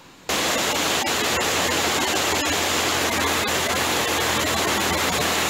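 Water pouring over a small concrete weir and rushing down its spillway channel: a loud, steady rush that starts abruptly about a third of a second in.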